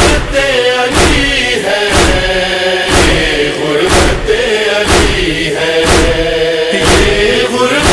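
Wordless interlude of a Shia noha: a backing chorus holds a sustained chant over a steady matam beat, a sharp thump about once a second.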